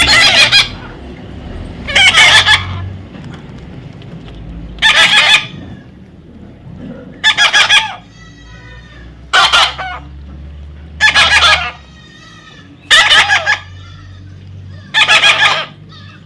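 A parrot screeching loudly in short, harsh calls repeated about every two seconds, eight in all, with faint chirps between them.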